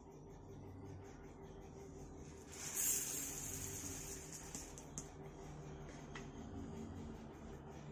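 Small mustard seeds poured from a plastic container into a steel bowl: a hissing rattle that starts about two and a half seconds in and trails off slowly, with a light tick near five seconds. A faint steady hum runs underneath.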